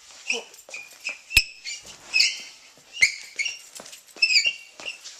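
Small pet bird giving short, shrill chirps and squawks, one or two a second, with a sharp click about a second and a half in.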